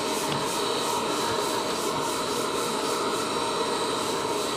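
Shop dust extractor running steadily with a faint whine, drawing air through the hose of a dustless long sanding block.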